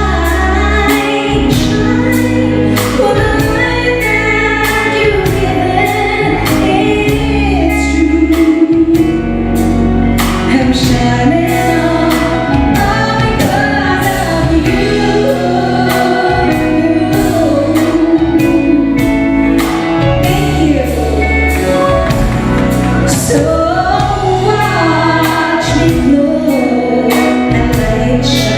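Live band performing a song with a steady drum beat while a woman sings lead, with backing vocals joining in.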